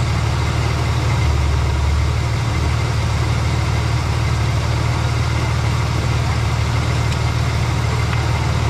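Vehicle engine running steadily with a low hum, warming up after a newly replaced thermostat.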